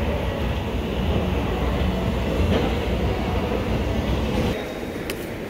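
Escalator running: a steady low mechanical rumble that drops away about four and a half seconds in.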